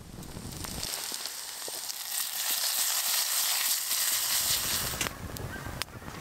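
Wood fire crackling in a small bushbox stove. From about a second in, potatoes frying in a pan over the fire give a steady sizzling hiss that stops near five seconds, and the fire's sharp crackles return.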